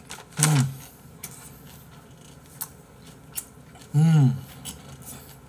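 A man chewing a full mouthful of food, twice giving a short hummed 'mm' that slides in pitch, about half a second in and about four seconds in. A few light clicks fall between the hums.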